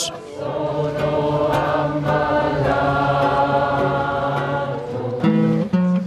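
A large amateur crowd choir of many voices singing together, holding long sustained chords, then moving to new notes about five seconds in.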